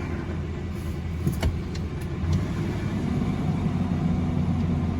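2003 Ford Expedition's V8 engine idling steadily just after a cold start, with a few light ticks that the owner puts down to the broken insides of the catalytic converter.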